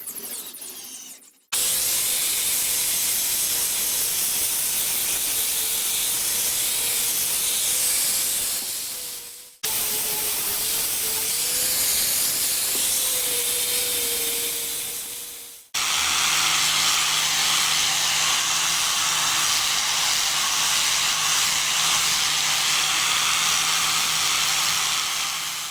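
A power tool running with a steady high rushing noise in three long stretches, each starting abruptly and winding down at its end.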